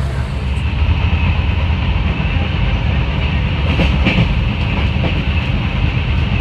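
Passenger train running along the track, heard from inside the carriage: a steady loud rumble with a hiss over it, and a few faint clacks of the wheels about four seconds in.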